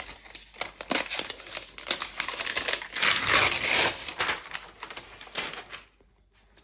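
Crinkling and rustling of the protective wrapping being pulled off and handled as a new MacBook Pro is unwrapped. It is loudest in the middle and dies away near the end.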